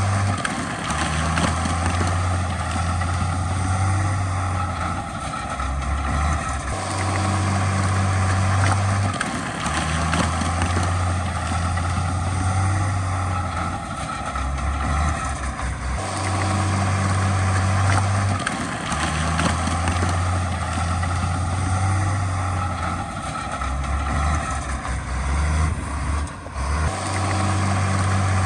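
Diesel engines of heavy earthmoving machinery running, a low engine note that steps between pitches every second or two over a steady mechanical din.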